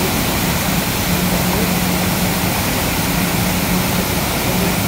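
Waterfall rushing loudly and steadily, a dense, even noise of falling water with a faint low hum that comes and goes.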